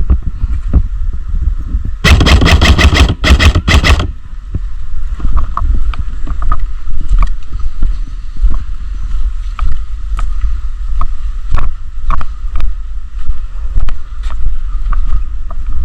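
Airsoft gun fired on full auto in two quick bursts, about ten rapid shots and then about five, around two to four seconds in. Under it runs a steady low rumble, with scattered clicks and knocks.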